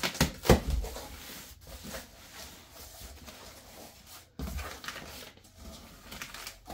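A cardboard shipping box being handled and opened by hand. A few sharp knocks and scrapes of cardboard come in the first second, the loudest about half a second in, followed by softer irregular rustling and sliding of the flaps and packing.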